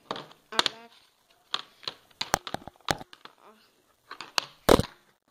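Plastic Blu-ray and DVD cases being handled: a series of sharp clicks and taps, with a louder knock near the end.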